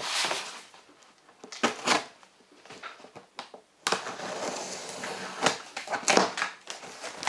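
Large cardboard box being turned and its top flaps worked open: short bursts of cardboard scraping and rustling, then a longer stretch of rubbing and scraping from about four seconds in, with a few sharper scrapes.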